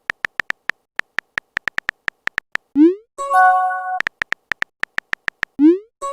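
Smartphone keyboard typing clicks, several a second, broken twice by a short rising swoosh of a text message being sent, each followed by a chime of a message notification.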